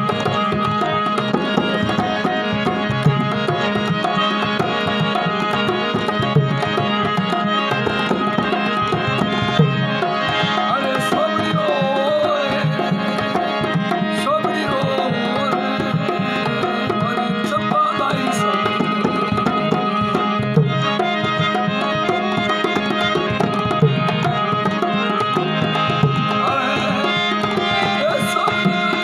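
Marwari folk music with no singing: a tabla-like hand drum keeps a steady rhythm under a held drone and a wavering melodic line.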